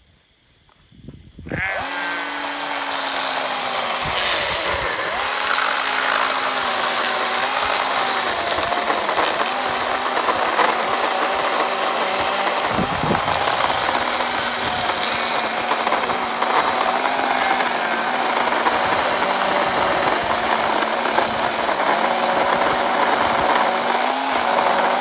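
Ryobi ONE+ 18-volt brushless battery chainsaw cutting through a thick log, starting about a second and a half in. The electric motor and chain whine steadily, the pitch dipping now and then as the saw loads up in a log wider than it is meant for.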